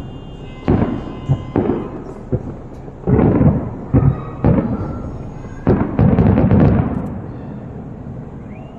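Aerial fireworks bursting: a string of sharp booms, then two dense rumbling volleys about three and six seconds in, fading away near the end.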